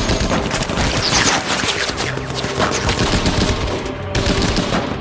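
Sustained machine-gun fire from tank-mounted machine guns, several guns firing rapid, overlapping bursts without a break.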